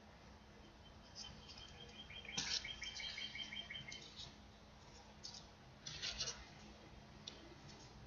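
Faint crinkling and rustling of folded paper units as red 3D origami triangles are handled and pushed into place, with short scratchy bursts about two and a half and six seconds in. A brief high twittering of quickly repeated chirps runs from about two to four seconds in.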